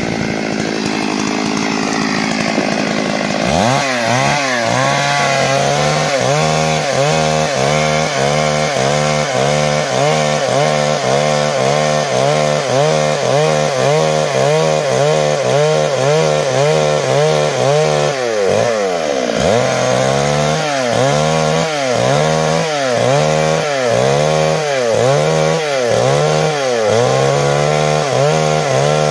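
Stihl MS 382 two-stroke chainsaw at full throttle ripping lengthwise through a log. It runs steadily for the first few seconds, then the engine pitch dips and recovers over and over, roughly once or twice a second, as the chain loads and frees in the cut.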